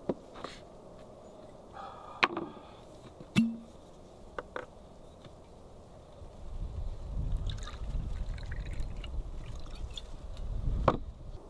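Liquid being poured, with several sharp clicks and knocks of a bottle or glass. A low rumble comes in about halfway.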